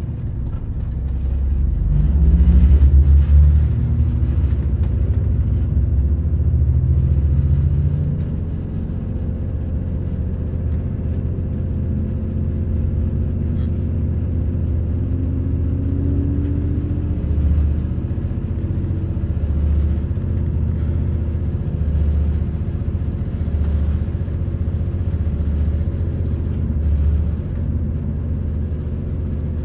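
A CrossCountry Class 221 Super Voyager diesel-electric train running at speed, with a steady low rumble of its underfloor diesel engines and the running gear. Near the middle an engine note rises for a few seconds as the train picks up power.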